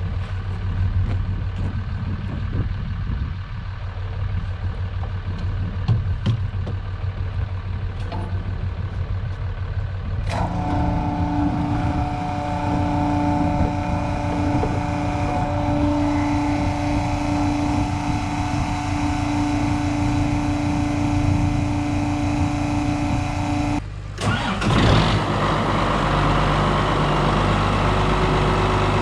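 Tractor engine running steadily, a low rumble. About a third of the way in a steady whine joins it. A few seconds before the end the sound breaks off abruptly and comes back with a different engine tone.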